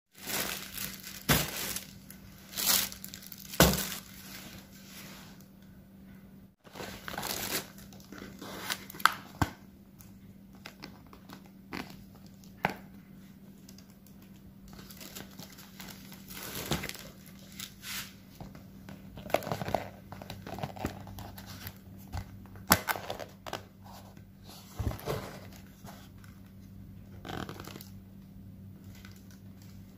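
Paperboard takeaway food boxes and their paper and plastic packaging being handled and opened: irregular rustling, crinkling and tearing, loudest in the first few seconds, over a faint steady low hum.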